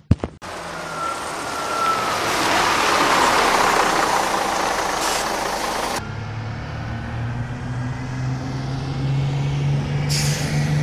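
Bus sound effect: a rushing noise builds as the bus pulls in, then about six seconds in it switches to a steady low engine idle, with a short air-brake hiss near the end.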